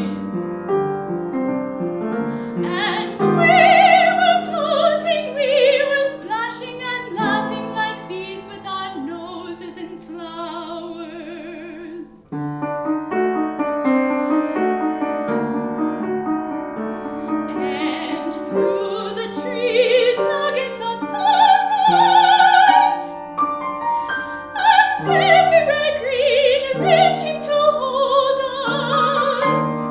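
A female classical singer with operatic vibrato, accompanied by piano, performing an art song. The voice drops out for a moment about twelve seconds in, and then voice and piano return.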